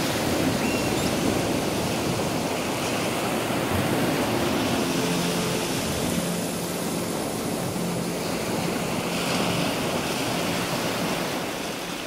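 Sea surf washing onto a beach: a steady rush of breaking waves.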